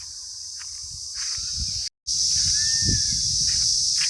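Field insects droning in a steady high-pitched buzz, the kind that makes the ears ring. It swells about a second in, cuts out for a moment near the middle, and comes back louder.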